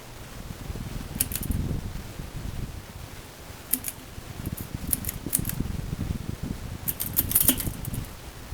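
Harbor Breeze Typhoon ceiling fan running, with an uneven low rumble and clusters of sharp metallic clicks and rattles about a second in, near four and five seconds, and again near seven seconds.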